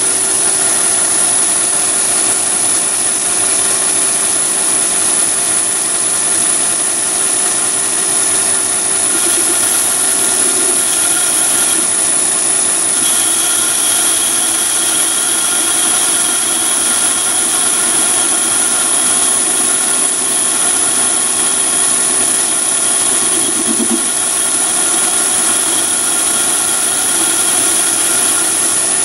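Chinese mini lathe running steadily with a constant whine and gear hum while a left-hand carbide-insert tool cuts a 316 stainless steel bar. A further high tone joins about 13 seconds in.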